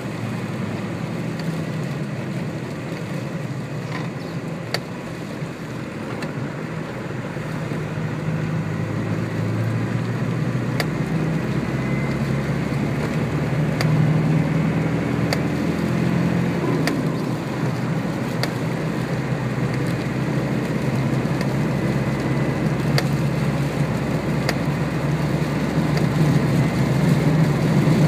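Land Rover Defender 110's 300Tdi 2.5-litre four-cylinder turbodiesel running under way, heard from inside the cab with road noise. The engine note climbs in pitch and loudness as it accelerates about a third of the way in, and dips briefly about two-thirds of the way through. Faint ticks come about every one and a half seconds.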